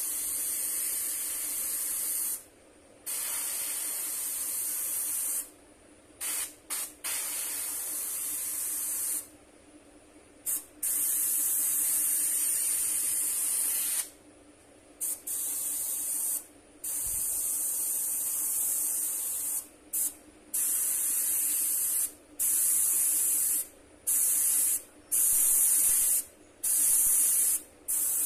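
Airbrush spraying paint in a series of hissing bursts, each a second to several seconds long, started and stopped over and over with short pauses between. A faint steady hum runs underneath.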